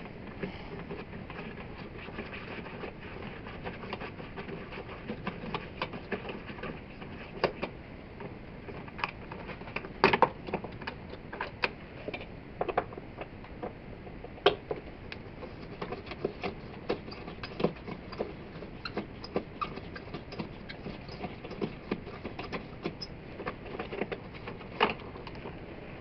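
Small irregular clicks and scrapes of a screwdriver backing out a wall light switch's mounting screws and of the switch being worked loose in its metal wall box, over a steady hiss. A few sharper clicks stand out, the loudest about ten seconds in.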